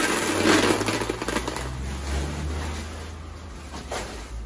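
Rustling and clattering as packaging and potting materials are handled, loudest in the first second and a half and again briefly near the end, over a low steady hum.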